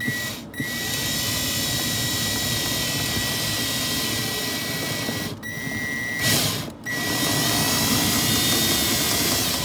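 Cordless drill running, boring a pilot hole up through the RV's ceiling. Its motor gives a steady high whine that stops briefly a few times as the trigger is let off.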